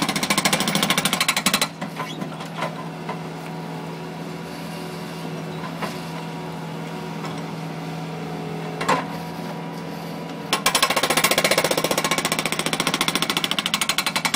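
Bobcat skid-steer's hydraulic breaker hammering rapidly into parking-lot pavement. It stops after about two seconds, leaving the skid-steer's engine running steadily with a single knock. Near the end the breaker starts hammering again.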